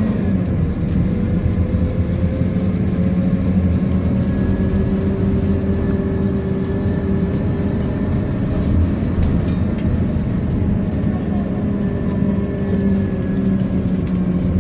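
Scania K230UB bus's five-cylinder diesel engine heard from inside the passenger saloon while under way, a steady drone whose pitch drifts slightly up and down, over road and tyre noise.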